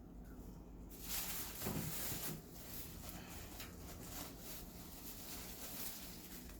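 Plastic trash bag rustling and crinkling as hands sift through loose potting soil. The rustle is loudest for about a second and a half near the start, then goes on faintly and unevenly.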